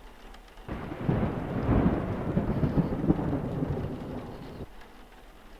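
Roll of thunder (a storm sound effect) rumbling for about four seconds, starting under a second in and cutting off suddenly.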